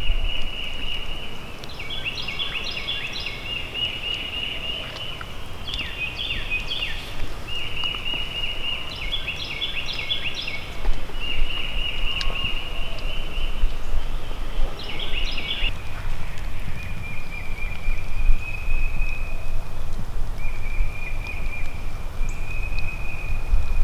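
Songbird singing repeated high, even-pitched trilled phrases, each a second or two long, over a low rumble on the microphone.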